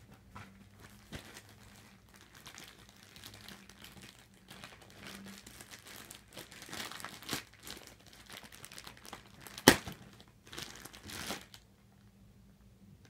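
Packaging crinkling and rustling as a package is unwrapped by hand, with some tearing. One sharp click stands out a little under ten seconds in, the loudest sound.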